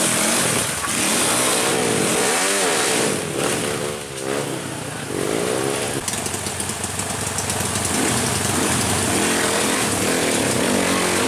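Trail motorcycle engines revving, the pitch rising and falling repeatedly in short blips.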